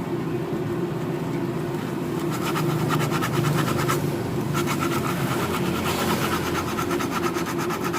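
A starter motor's armature spinning with a steady whirr while it is rubbed smooth with an abrasive, a fast even rasping. The rasping comes in about two and a half seconds in, stops briefly around halfway and resumes.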